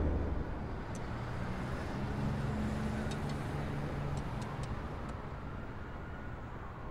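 A steady low rumble of background ambience, traffic-like, with a few faint ticks. At the start, the tail of a loud boom is still dying away.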